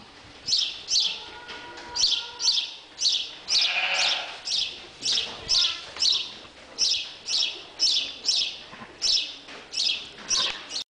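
Small bird chirping over and over, about two high chirps a second, with a brief lower call about four seconds in.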